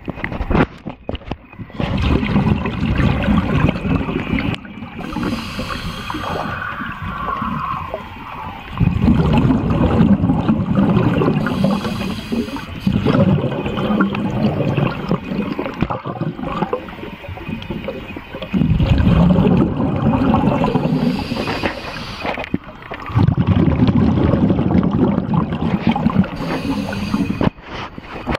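Scuba diver breathing underwater through a regulator: a hiss on each inhale and a loud gurgling rush of exhaust bubbles on each exhale, about five breaths in turn.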